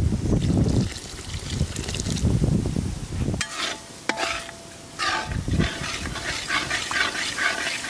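Perforated metal spoon stirring and scraping thick masala paste around an iron kadai, with the paste sizzling and crackling in oil as it fries down until the oil separates. The stirring is heavier in the first half; after that the crackle and light clicks of the spoon come to the front.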